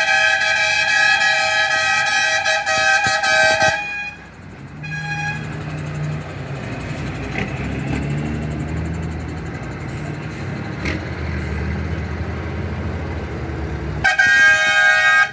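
Truck air horn sounding a long held chord that cuts off about four seconds in, then a short toot. Truck engines run as the trucks pass, and a second horn blast comes near the end.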